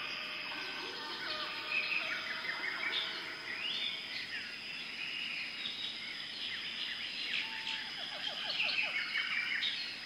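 Small birds chirping and twittering, with many short calls overlapping throughout, over a steady high-pitched tone.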